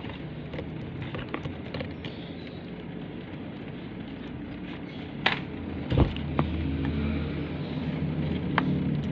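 Steady low rumble with scattered sharp clicks and knocks, the loudest knock about six seconds in; the rumble grows louder in the second half.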